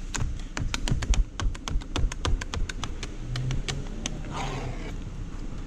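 Rapid, irregular clicking and tapping of a hand cleaning tool working against car window glass, several clicks a second, easing off with a short hiss about four seconds in.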